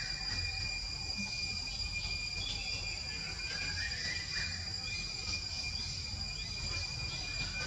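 Forest insects droning: a steady, high-pitched buzz held at two pitches, with a few faint chirps and a continuous low rumble underneath.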